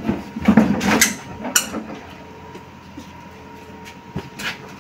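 Rattling and knocking of a baby playpen's folding mattress board being handled, loudest in the first second or so, then a few light knocks.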